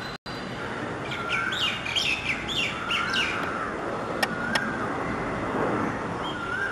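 Birds calling over a steady background hiss: one bird repeats a short call about every one and a half to two seconds, while another gives a quick run of chirps in the first few seconds. Two sharp clicks come a little past the middle.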